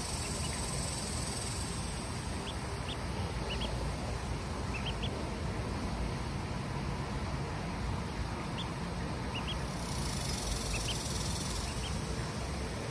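Ducklings peeping: short, high peeps in scattered little runs of two or three, over a steady low background rumble.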